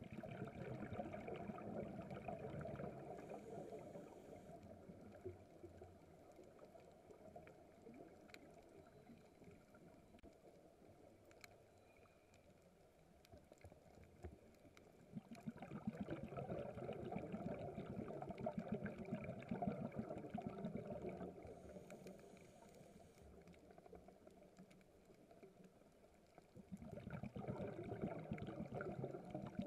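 Scuba diver's exhaled air bubbling underwater in three bursts lasting a few seconds each: at the start, about halfway in, and again near the end. Between them there is a quieter crackle with a few faint clicks.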